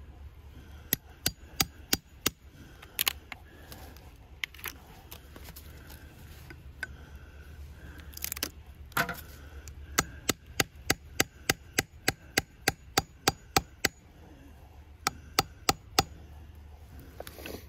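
Hammer tapping a spile into a freshly drilled taphole in a maple trunk. A scattering of sharp knocks in the first few seconds gives way to a steady run of about three light taps a second from about ten to fourteen seconds in, with a few more taps near the end.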